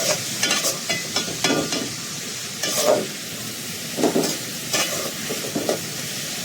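Food sizzling steadily in a hot pan while being stirred, with about ten irregular scraping strokes of the utensil against the pan.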